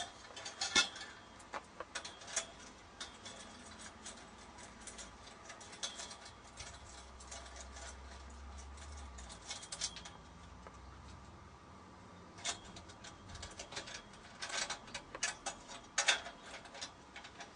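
Ratchet wrench with a 10 mm socket clicking in short bursts, tightening the nuts of the aerial's mounting bracket onto the pole, with pauses between bursts.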